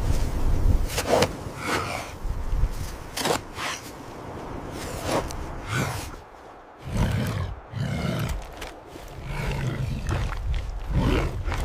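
Hands scraping and digging in snow in a string of quick strokes, with effortful grunts. From about seven seconds in come low, drawn-out animal rumbles and roars, as of woolly mammoths.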